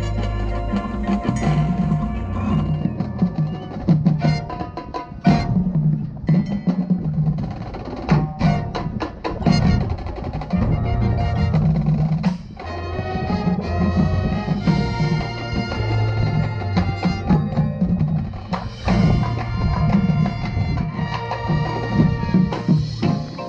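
High school marching band playing its field show: sustained pitched band parts with drum hits and front-ensemble mallet percussion, several sharp hits in quick succession around the middle.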